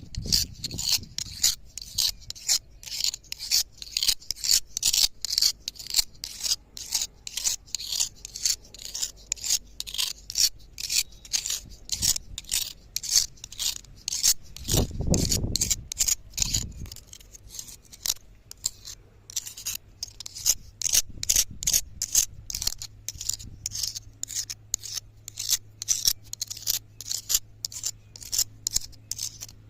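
A cutter blade being sharpened on a stone: steady back-and-forth scraping strokes of metal on stone, about two a second. There is a brief low rumble about halfway through.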